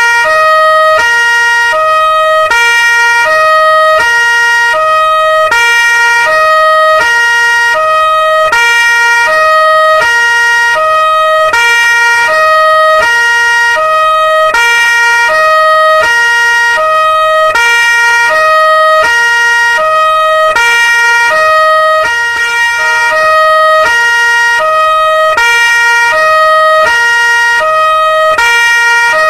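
Police car siren sounding a two-tone hi-lo pattern: a low note and a higher note alternate evenly, a full cycle about every 1.3 seconds, repeating without a break. A steady high tone and a low hum run under it.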